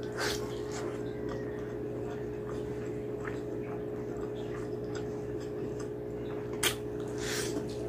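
Close-up eating sounds of a person biting and chewing a piece of mutton curry: soft, wet mouth clicks and smacks, with a sharper click near the end followed by a short breathy noise. A steady low hum runs underneath.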